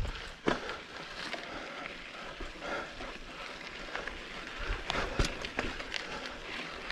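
Crunching on a rocky dirt trail with scattered knocks, the sharpest about half a second and five seconds in.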